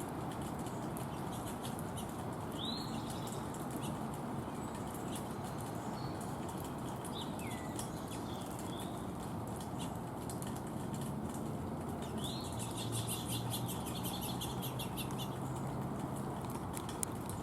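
Small birds at a feeder giving a few short chirps: one about three seconds in, a couple around the middle and one near twelve seconds. The last is followed by a rapid ticking rattle lasting about three seconds, all over a steady background hiss.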